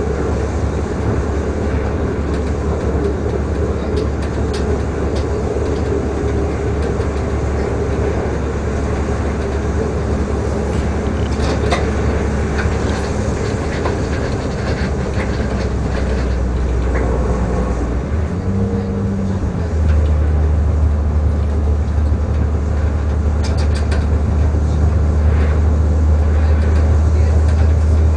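Diesel engine of a class 648 LINT railcar running hard under full throttle, a steady low drone heard in the driver's cab as it pushes through snow-drifted track. About eighteen seconds in the drone dips briefly, then comes back louder. Occasional light clicks sound over it.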